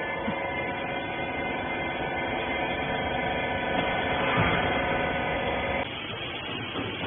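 Electric motor and hydraulic pump of a rag baler humming steadily, then cutting off suddenly about six seconds in. A brief louder noise rises over the hum about four and a half seconds in.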